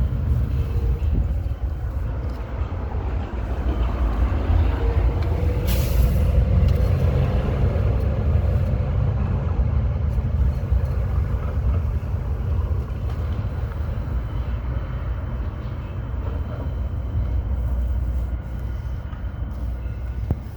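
Street traffic heard through strong wind on the microphone: a steady low rumble throughout, with an engine tone swelling around four to seven seconds in and a short hiss about six seconds in.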